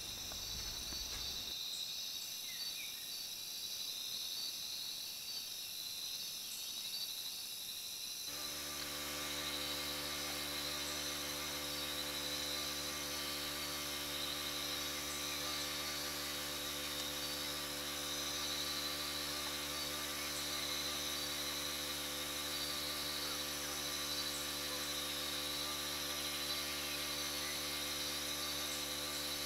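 Insects buzzing steadily in a high, shimmering chorus. About eight seconds in, a steady low hum made of several even tones starts suddenly and runs on under it.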